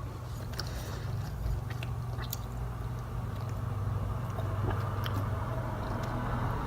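A person chewing a Starburst-type chewy candy with faint, irregular clicks and smacks, over a steady low electrical hum.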